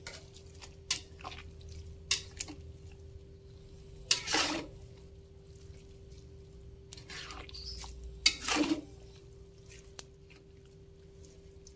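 Metal spatula stirring a pot of simmering soup in a wok, with a few light clicks early and two louder scrapes about four and eight seconds in, over a steady low hum.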